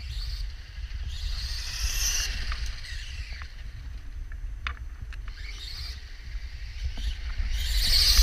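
Brushless-converted toy RC monster truck driving outdoors, its motor and tyre noise swelling twice as it passes, louder the second time, over wind buffeting the microphone.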